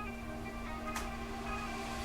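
Background music, a melody of short notes changing in quick succession, over a steady low hum. A single sharp click sounds about a second in.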